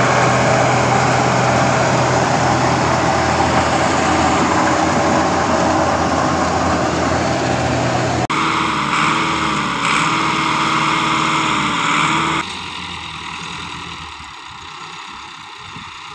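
Tractor-driven wheat straw chopper (bhusa reaper) running loudly behind a Massey Ferguson diesel tractor, chopping stubble into chaff. About eight seconds in the sound changes to the chopper's blower throwing chaff through its spout into the trolley, with a hum that wavers up and down; after about twelve seconds it drops to a quieter, more distant engine running.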